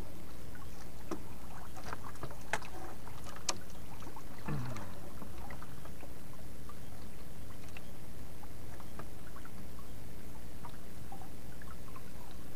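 Small fishing boat (bangka) sitting on calm sea: a steady low rumble with a few light clicks and knocks in the first few seconds, and a short falling sound about four and a half seconds in.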